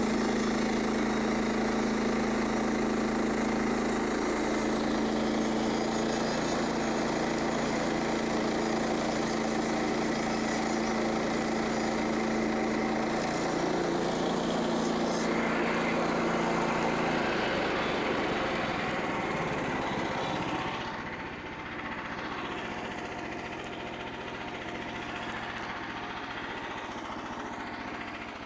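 Small gasoline engine of a portable band sawmill running steadily. About 18 seconds in its sound changes and drops, and it runs on quieter and lower.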